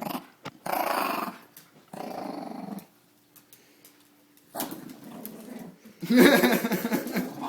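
A small puppy growling in several rasping bursts, with a pause about halfway through; the loudest, longest growl comes near the end.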